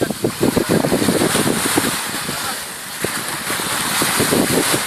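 Helicopter flying low and close, its rotor blades beating in a rapid train of pulses that ease off in the middle and pick up again near the end, with wind noise on the microphone.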